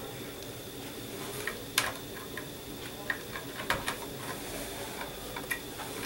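Scattered small clicks and rustles of plastic power-supply connectors and their wires being handled and fitted onto a computer motherboard, over a steady faint hiss.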